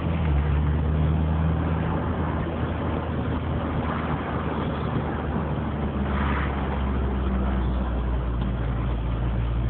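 Car being driven at a steady speed: a steady engine drone with road noise, the engine note rising slightly about six seconds in.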